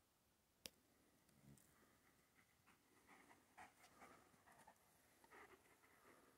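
Very faint: a single sharp click about half a second in, then soft, irregular scratching and rustling of footsteps on a leaf-strewn dirt track.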